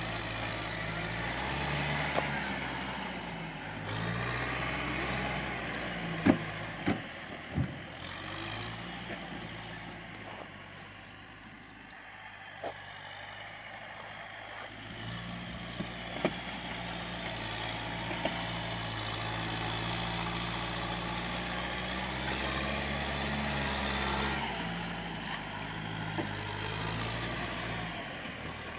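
Kubota M6040SU tractor's four-cylinder diesel engine running under load as the tractor works in deep mud, its note rising and falling. A few sharp knocks come around six to eight seconds in.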